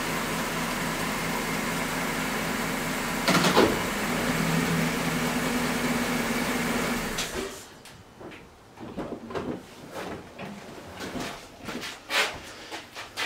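Pickup truck's engine idling, with a sharp knock about three seconds in, then cut off abruptly about seven seconds in. After it, scattered clicks and knocks as the driver's door is opened and someone climbs out.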